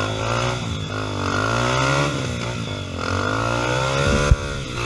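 Off-road trail motorcycle engine revving, its pitch rising, dropping and rising again as the throttle is worked, with a couple of sharp knocks near the end.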